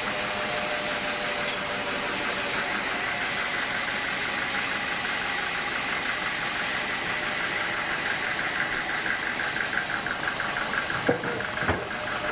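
Homemade sawmill machine running steadily with a fast, even pulsing. Two sharp knocks sound about eleven seconds in.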